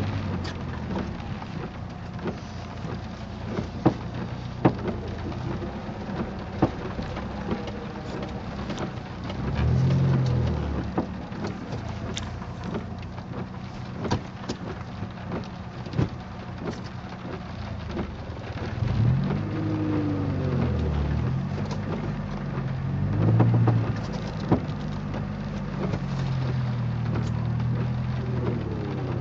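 Chevrolet Cavalier on the move, its engine note swelling and falling now and then over road noise, with a creaking noise coming through as short sharp clicks scattered throughout.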